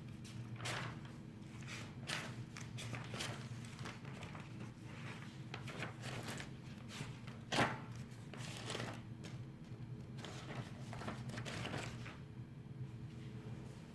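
Paper forms being handled on a desk: irregular rustles and small clicks, with one sharper knock about halfway through, over a steady low electrical hum.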